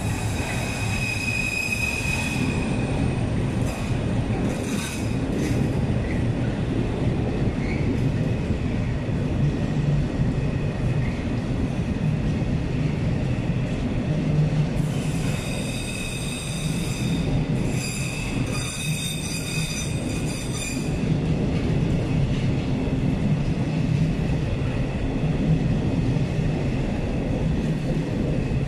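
Container wagons of a freight train rolling past on the rails: a steady heavy rumble of wheels on track. High squealing from the wheels rings out near the start and again for several seconds about halfway through.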